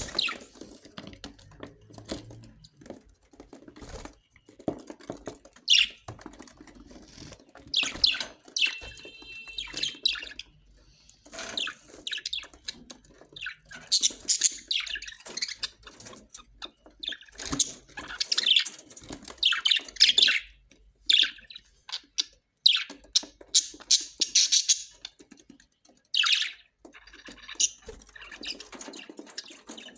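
Australian parrots calling: short, irregular chirps and harsh squawks coming in scattered clusters, with one more tuneful call about nine seconds in.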